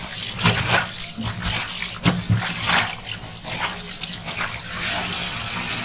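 Tap water running into a stainless-steel sink while a soapy cloth kitchen towel is squeezed and scrubbed by hand, in irregular splashes. Near the end the splashing settles into a steadier stream of running water.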